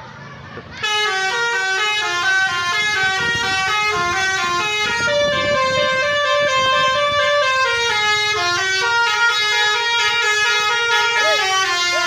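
A Basuri telolet musical air horn on a tour bus plays a melody of quickly stepping notes without a break. It starts about a second in.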